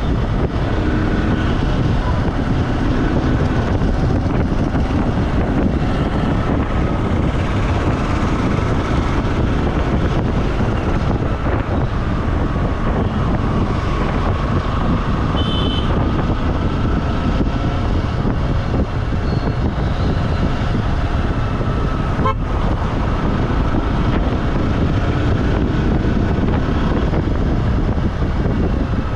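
Steady road noise of a vehicle travelling along a road, with a brief high-pitched horn toot about halfway through.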